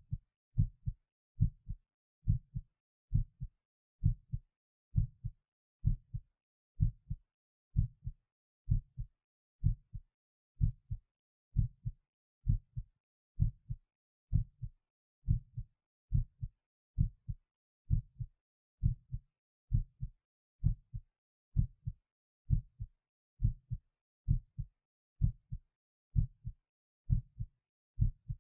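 A person's heartbeat, recorded close up: a steady rhythm of a little more than one beat a second. Each beat is a pair of low sounds close together (lub-dub).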